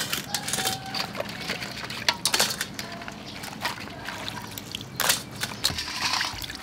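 Water splashing and sloshing in a stainless steel bowl as live blue crabs are handled and washed by hand, with scattered sharp clicks of shells and claws against the bowl.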